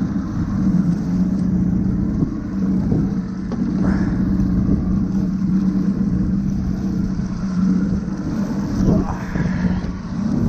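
Evinrude outboard motor running steadily, a constant low hum.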